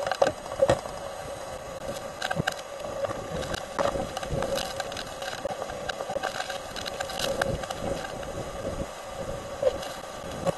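Hurricane eyewall wind blowing against a vehicle, heard from inside, with wind-driven rain pelting the glass and many sharp hits and rattles on the body.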